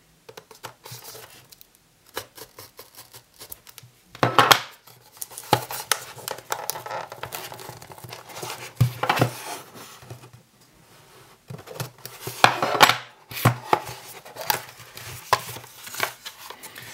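A knife slitting the seal on a small cardboard SSD retail box, then the box being worked open by hand and its lid and paper insert handled. Irregular scraping, tearing and rustling with light taps, in three louder spells about 4, 9 and 13 seconds in.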